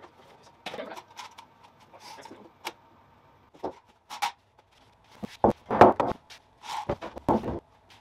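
Irregular knocks, thumps and scrapes of a large glued-up wooden tabletop panel being handled and stood on end on a concrete shop floor, busiest and loudest from about five seconds in.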